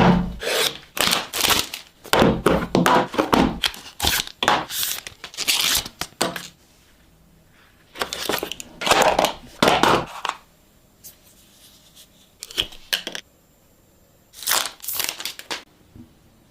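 Phone box packaging being opened by hand: plastic wrap and paper tearing and crinkling in irregular spells, dense for the first six seconds, then sparser with quiet gaps between.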